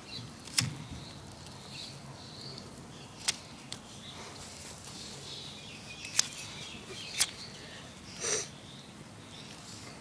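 A few scattered sharp clicks, about one every second or three, and a short rustle about eight seconds in, over a faint outdoor background.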